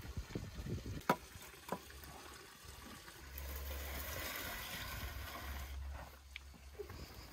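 Split firewood logs knocking against one another as they are stacked into a brick wood-fired oven, with two sharp knocks about a second in and soon after, followed by a few seconds of steady hissing noise.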